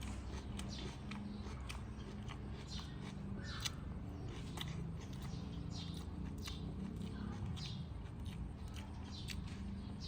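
Close-up eating sounds: irregular small clicks, crackles and smacks of someone chewing and eating balut, over a low steady hum.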